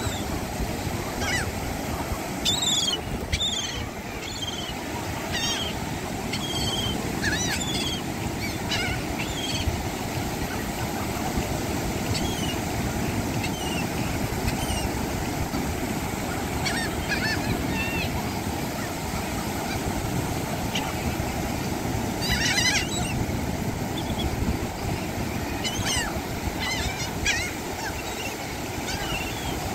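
Flock of laughing gulls calling in short, scattered squawks throughout, over the steady rush of surf and wind.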